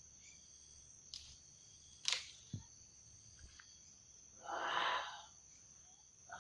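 Steady high trilling of night insects, with a few sharp clicks and a low knock of camera handling in the first half. About 4.5 s in comes a brief, louder, breathy noise.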